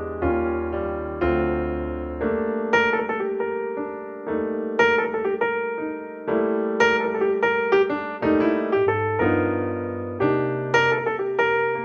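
Background music: a solo piano playing a gentle, slow melody over sustained chords.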